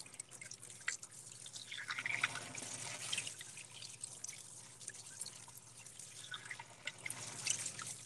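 Kitchen faucet running onto hands that rub together under the stream, water splashing and spattering into the sink basin as butter-coated hands are rinsed in warm water. The splashing gets a little louder about two seconds in.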